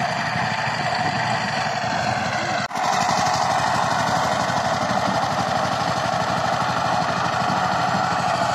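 Single-cylinder diesel engine of a two-wheel power tiller running steadily with a fast, even putter while it tills a field. The sound breaks off briefly about two and a half seconds in, then carries on the same way.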